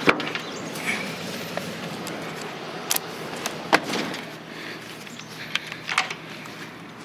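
Handling noise of a camera tripod being set up: a few sharp clicks and knocks, the loudest just after the start and at about three and four seconds in, over a steady outdoor hiss.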